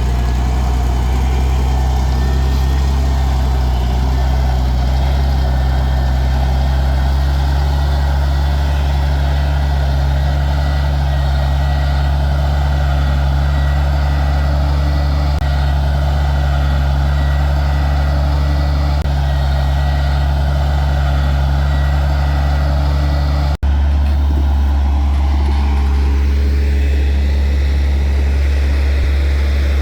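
Diesel engine of heavy earthmoving equipment running steadily at a constant load, with a deep, even hum. There is a sudden, brief dropout near the end, after which the engine sound carries on with a slightly different tone.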